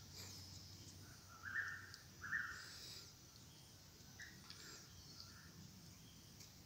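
Faint bird calls in forest: two short whistled notes close together, then a couple of fainter ones a few seconds later, over quiet outdoor background.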